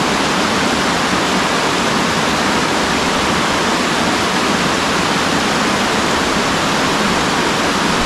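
Water pouring down the Pittaguda (Kuttabadra) waterfall, a loud, steady rush without a break.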